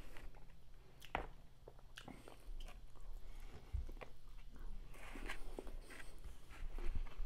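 Close-up crunching bites and chewing of crispy fried food, with a sharp crunch about a second in and irregular crackling chews after it.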